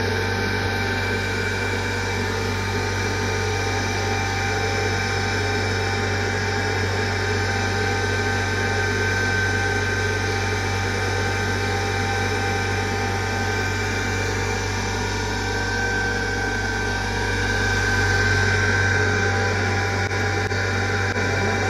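Electric motor of a pottery workshop machine running steadily: a constant low hum with a higher whine, swelling a little about seventeen seconds in.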